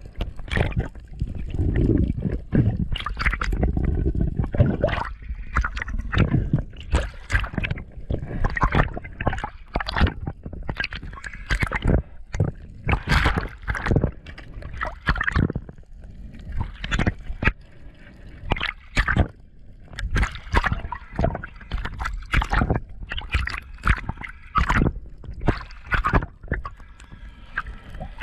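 Underwater sound picked up through a camera housing: water sloshing and gurgling, with frequent irregular sharp clicks and knocks. A heavier muffled low rumble comes in the first few seconds.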